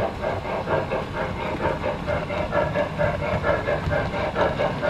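Sound system of a model Great Northern S2 steam locomotive (MTH DCS) playing its labored chuff on a long grade: an even chuff of about four beats a second over a low rumble.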